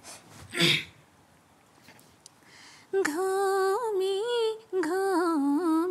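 A young woman begins singing unaccompanied about three seconds in, holding long, wavering notes with a brief break in the middle. The song is a Nepali modern (adhunik) song. Before it there is a short noise and a quiet pause.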